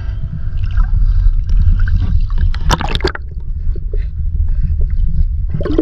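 Creek water sloshing and splashing against a waterproof camera held at the surface, with a loud low rumble and a burst of sharp splashes about halfway through. The camera then goes under the water and the sound turns muffled.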